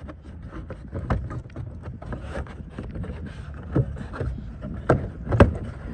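A plastic front-bumper trim piece is pulled out by hand, giving several sharp clicks and knocks. Under them runs a steady low rumble of wind on the microphone.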